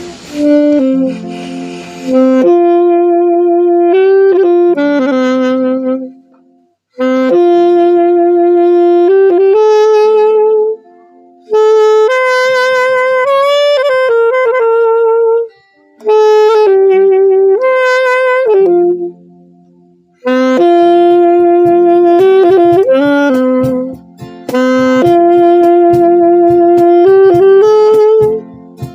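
Saxophone playing a slow song melody in phrases of a few seconds each, with short breaths between them.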